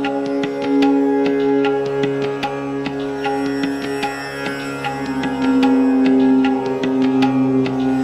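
Background music: quick plucked-string notes and hand-drum strokes over a sustained drone.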